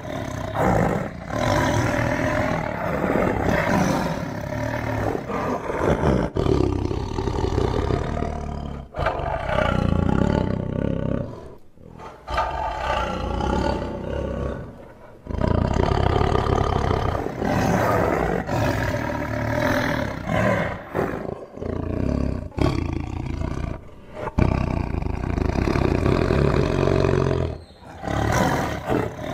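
Tiger roaring and growling in a series of long, loud roars broken by short pauses.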